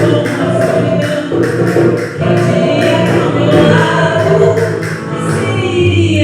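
Acoustic band playing live with a female vocalist singing.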